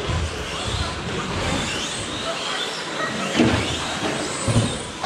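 Several 1/10 scale electric short course RC trucks racing together, their motors whining up and down in pitch over the tyre noise. There are a couple of sudden thumps, the loudest about three and a half seconds in.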